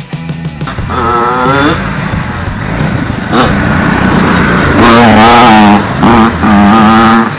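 Small dirt bike and home-made go-kart engines revving as they ride past. The pitch climbs about a second in, and the engines run loudest and high through the second half, with a brief dip a little after six seconds.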